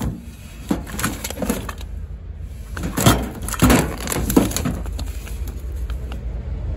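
Plastic food packaging crinkling and rustling as shrink-wrapped boxes and pouches are handled and pulled out of a metal storage can, in two bursts of handling, over a steady low rumble.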